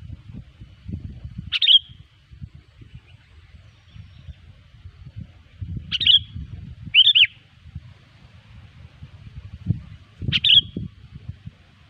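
Sooty-headed bulbul (kutilang) giving four short, sharp chirps a few seconds apart, two of them close together in the middle, over a low irregular rumble.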